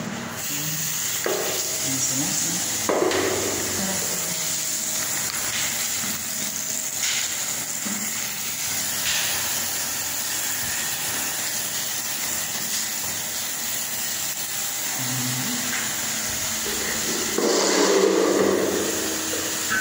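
Steady hiss of running water in a toilet bowl, with a few knocks, growing louder near the end.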